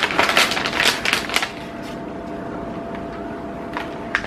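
Plastic snack packaging crinkling and rustling as it is handled, for about a second and a half, then dying down to a faint steady hum with a couple of small crinkles near the end.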